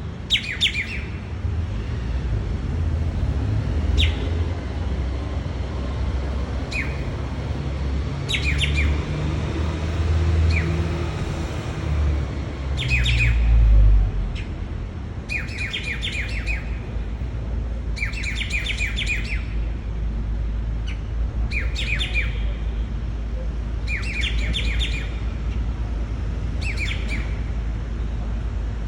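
Grey treepie calling: short, multi-note call phrases repeated about every two to three seconds. A low rumble underlies the first half and swells about 13 seconds in before dropping away.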